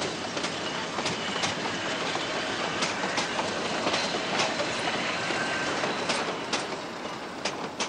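White Pass & Yukon Route narrow-gauge passenger cars rolling past, a steady rattle of wheels on track broken by irregular sharp clacks as the wheels cross rail joints.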